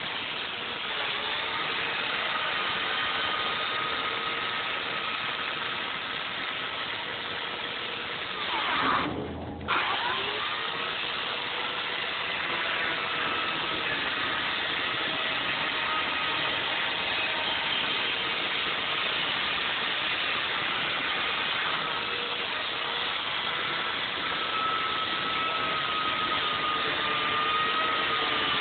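Electric chainsaw running steadily while carving thin layers off a foam block. About nine seconds in the motor is briefly let off, its pitch sliding down, then starts up again.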